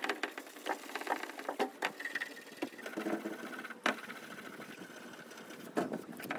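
An abrasive scrubbing pad rubbed back and forth over the painted steel skin of a 1974 VW Bus door, a quick, irregular run of scratchy scraping strokes as it strips old black paint down to the yellow beneath.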